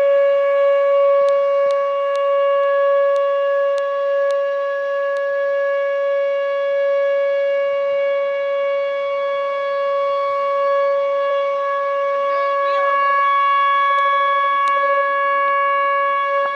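Whelen WPS 2807 electronic outdoor warning siren sounding a steady tone that holds one pitch, without the rise and fall of a wail.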